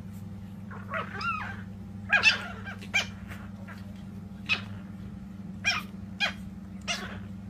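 Chihuahua puppies yipping while they play-fight: about eight short, high yips, the loudest about two seconds in, over a steady low hum.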